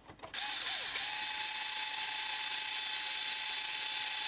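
Small electric drill running steadily with a high whine and one held tone as it bores a hole through the thick plastic body shell of an RC truck, starting suddenly about a third of a second in.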